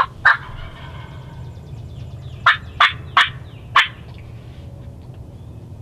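Wild turkey calling: one loud short note just after the start, then a run of four short, loud notes about two and a half seconds in, roughly three a second.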